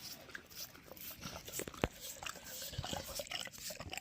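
An American bully dog chewing a strawberry treat: a quick irregular run of wet smacks and crunchy clicks.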